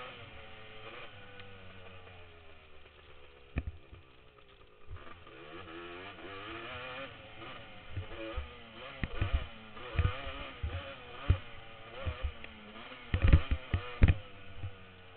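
1986 Honda TRX250R's two-stroke single-cylinder engine on the move, its pitch rising and falling as the throttle opens and closes. Sharp thumps on the helmet microphone come again and again, loudest in a cluster near the end.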